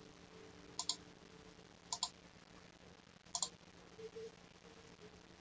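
Computer mouse clicking, three quick pairs of clicks about a second apart, then a fainter pair about four seconds in.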